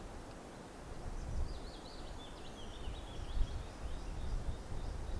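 A small songbird singing a quick, warbling run of high chirping notes for a few seconds over a low, steady rumble.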